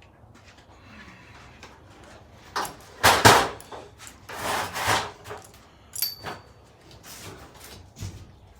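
Metal parts of a roller door opener being handled, with the drive chain being slackened and taken off the motor's cog: a few loud rattling, scraping bursts, the loudest about three seconds in, then a sharp click with a short high ring about six seconds in.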